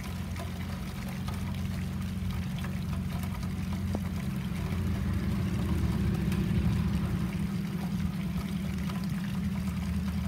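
Low, steady rumble of diesel freight locomotives, swelling slightly about midway, under a light patter of rain.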